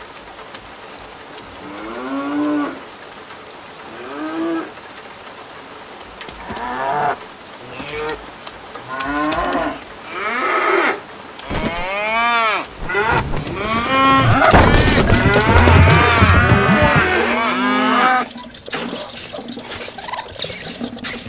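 Cows mooing: single moos every couple of seconds, each rising and falling in pitch. About twelve seconds in they become more frequent and overlap into a chorus of long moos, which breaks off suddenly near the end.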